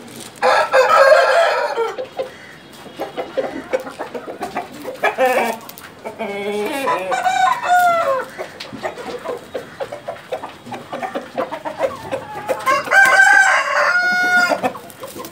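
Chickens calling in three loud bouts, about half a second in, in the middle, and near the end: a rooster crowing among clucks.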